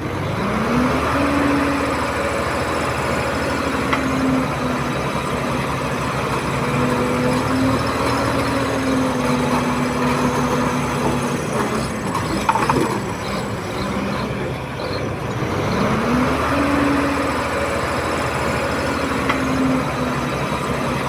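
Crawler bulldozer's diesel engine working under load: it revs up just after the start, holds high, sags briefly around the middle with a few clanks, then revs up again.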